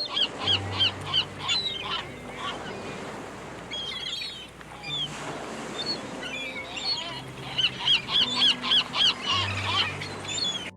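A bird calling in fast runs of short, repeated notes: one run near the start, scattered calls in the middle and a longer run in the last third. Soft background music plays underneath.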